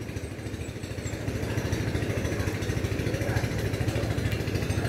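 A small engine running steadily with an even, rapid pulse, growing slightly louder after about a second.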